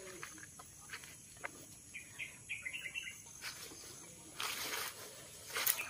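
Faint outdoor ambience with scattered bird chirps, a few light clicks, and a short burst of noise about four and a half seconds in.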